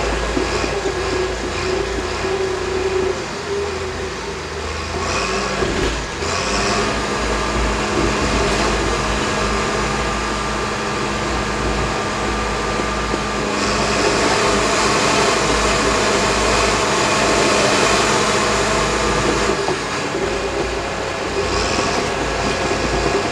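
Caterpillar D6K crawler dozer running under load as it pushes dirt with its blade: steady diesel engine noise with rattling from the machine, getting louder for several seconds in the second half.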